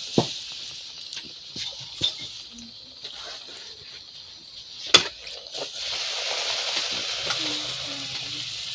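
Poori deep-frying in hot oil in an iron kadai: a steady sizzle. A metal ladle clinks sharply against the pan three times, the loudest about five seconds in.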